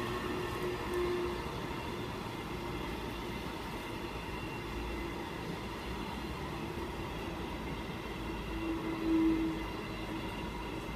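A long train of hopper wagons rolling past at speed, a steady rumble of wheels on rail. A low tone in the rumble grows louder for a moment about nine seconds in.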